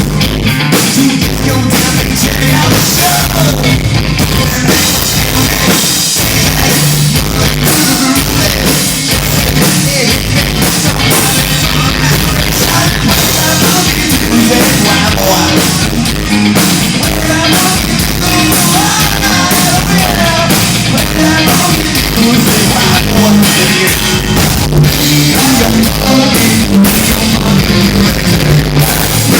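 Rock band playing loudly, with drum kit, electric guitar and a singing voice.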